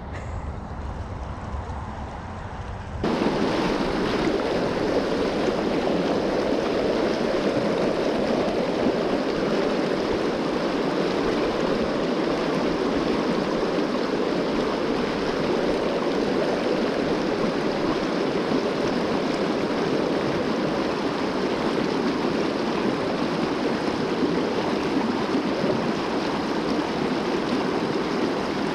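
River water rushing over rocks in a shallow whitewater riffle, a steady rush that jumps abruptly louder about three seconds in and then holds even.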